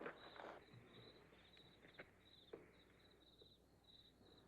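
Faint crickets chirping steadily at night, about two chirps a second, with a couple of small soft knocks.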